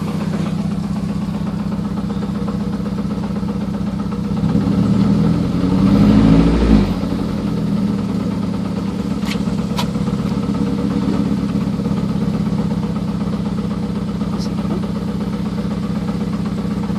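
Engine idling steadily, with a louder, rough stretch about four to seven seconds in where the running wavers and turns uneven before it settles back to a steady idle. The uneven running is the odd sound that the owner takes for abnormal. There are two short clicks about nine seconds in.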